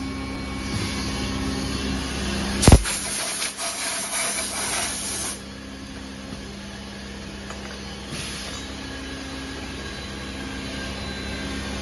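Compressed-air blow gun clearing chips and dust from the brass faucet bodies and fixtures of a CNC peeling machine. A sharp clack comes a little under three seconds in, followed by a strong hiss of air lasting about two and a half seconds. Shorter, fainter blasts come before it and again later, over a steady low machine hum.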